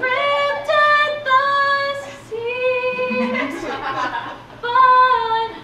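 A woman singing a cappella in a high voice, about six long held notes one after another with short breaks between them, the fifth sliding in pitch.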